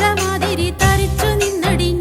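Background music: an Indian film-style song with a sung melody over a steady beat and bass.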